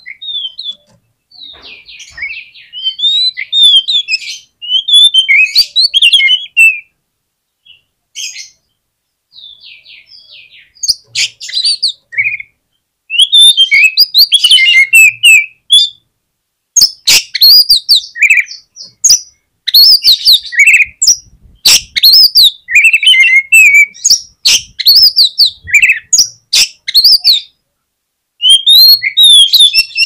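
Oriental magpie-robin singing: varied whistled and chattering phrases with sharp clicking notes, broken by short pauses at first and coming thick and loud from about halfway through.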